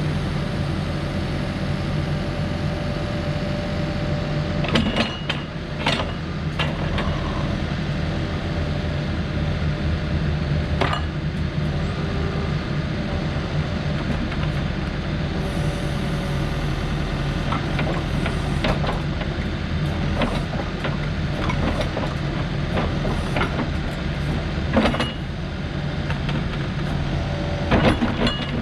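Diesel engine of a Case 580 Super N loader backhoe running steadily while its loader and backhoe are worked, with scattered sharp metal clanks and knocks, several about 18 to 25 seconds in.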